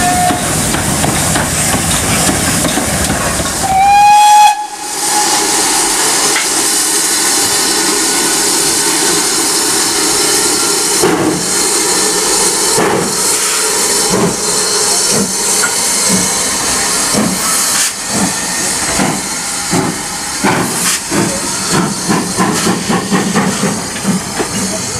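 GWR 45xx small prairie tank engine 4566 sounding its steam whistle: a brief toot at the start, then a loud blast about four seconds in. Afterwards a steady hiss of steam as the train moves past, with irregular knocks and clicks from the passing coaches in the second half.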